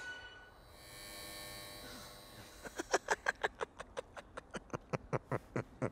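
A faint electric buzz, then a fast, even series of sharp clicks, about six a second.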